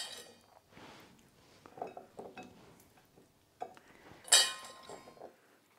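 Metal mixing bowl and ceramic baking dish clinking as potato pieces are dropped into the dish, with soft knocks of the pieces landing between the tomatoes. A few ringing clinks; the loudest comes about four seconds in.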